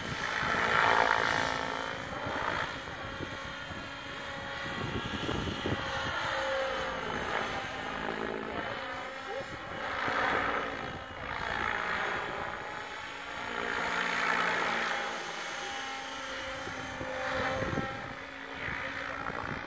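Align T-Rex 700 Pro electric model helicopter flying overhead: the rotor and motor whine swells and fades several times as it manoeuvres and passes, its pitch gliding up and down.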